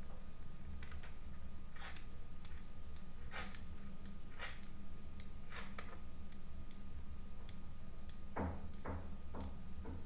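Small metal magnetic balls clicking together one by one as they are snapped onto a chain and into a flat grid: sharp little clicks at an irregular two or three a second, with a few duller clacks, over a steady low hum.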